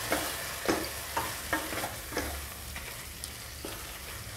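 Wooden spatula stirring raw chicken pieces into a thick sizzling masala in a pressure cooker, scraping strokes against the pot about twice a second in the first half and more sparsely later, over a steady frying sizzle.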